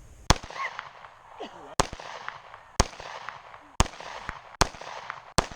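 Six 9mm pistol shots in a slow string, roughly a second apart, each a sharp crack with a brief echo.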